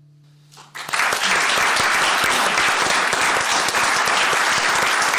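The song's final guitar chord fading out, then an audience breaking into loud, steady applause about a second in.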